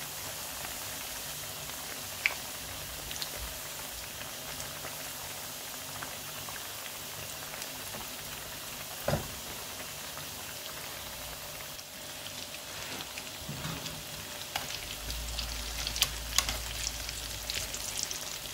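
Breaded chicken-and-cheese croquettes deep-frying in hot oil: a steady sizzle with scattered pops, the crackle getting busier in the last third. There is a single knock about halfway through.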